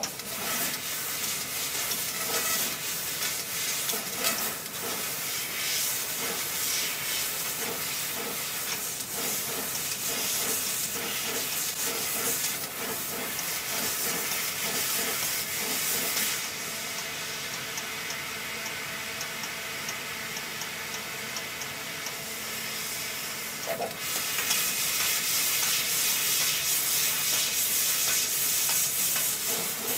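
CNC laser tube-cutting machine cutting steel tube: a steady hiss with a faint crackle. The sound shifts about 16 seconds in and grows louder about 24 seconds in.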